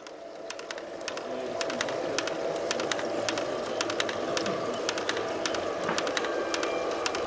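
A small electric motor and gearing of a garden-railway model running steadily, with many rapid, irregular clicks and rattles over the hum.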